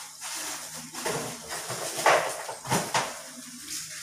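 Kitchen clatter of pots or utensils: a few sharp knocks, the loudest about two seconds in and two more close together near the three-second mark, over a steady hiss from the curry cooking in the frying pan on the gas stove.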